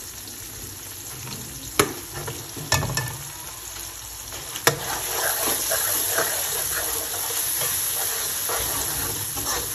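Onion-tomato masala with spice powders sizzling in a metal karahi as a steel ladle stirs it, with three sharp clinks of the ladle on the pan in the first half. About halfway through the sizzle and stirring grow louder and busier.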